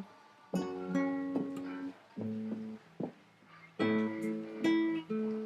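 Acoustic guitar strummed in slow single chords, each left to ring and fade. There is a brief gap about half a second in and a quieter stretch in the middle. This is an instrumental break between sung lines of a ballad.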